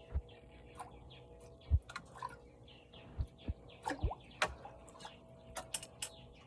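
Small birds chirping over and over, with several dull low thumps and a few sharp clicks close by.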